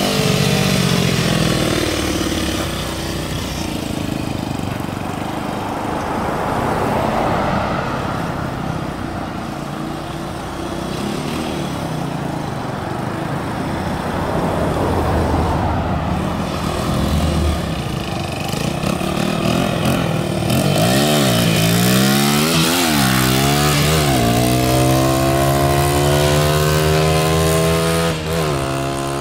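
Small dirt bike engines running on and off the throttle as they ride by. In the last third the revs rise and fall several times, then hold steady at a high pitch near the end.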